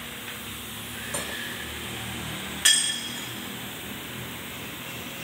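A sharp metallic clink of metal striking metal that rings briefly, about two and a half seconds in, with a fainter tap about a second in, over a steady workshop hum.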